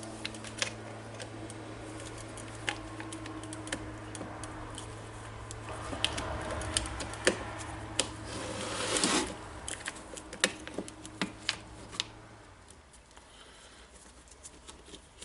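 Irregular light clicks and taps of drill parts and wiring being handled during reassembly, with a short scraping rustle about nine seconds in. A low steady hum underneath stops about twelve seconds in.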